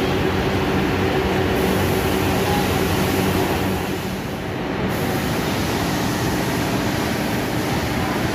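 Steady railway-workshop background noise: a continuous low machinery hum under an even hiss, with no single knock or event standing out.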